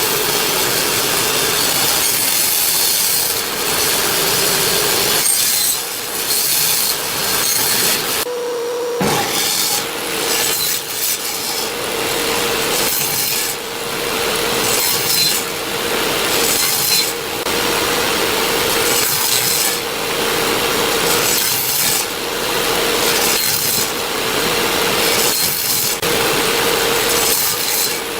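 Electric power tool running steadily with a constant motor hum while working wood, with a dense rasping, sawing-like noise that comes and goes.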